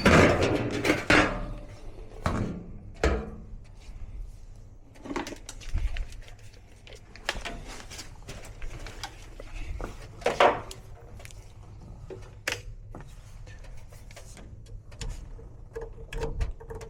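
Scattered clicks, taps and knocks of tools and parts being handled by hand, with a few louder knocks spread through, over a low background hum.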